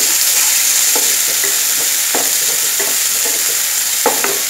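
Chopped onions sizzling in hot oil in a non-stick pan, being fried until light pink, with a spatula scraping and stirring them in several short strokes, two close together near the end.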